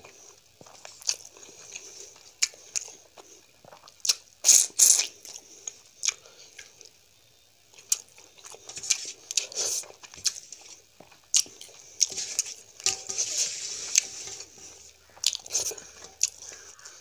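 Close-miked eating sounds of a person chewing mouthfuls of rice and fish curry eaten by hand, with many short sharp clicks and smacks, the loudest about four and a half seconds in. Fingers gather rice on a steel plate between mouthfuls.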